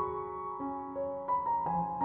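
Background piano music: a slow melody of held notes changing about every half second.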